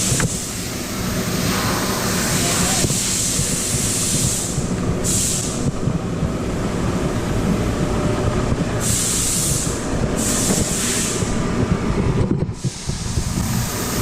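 Shop machinery running: a steady mechanical rumble with a high hiss that cuts out and comes back several times.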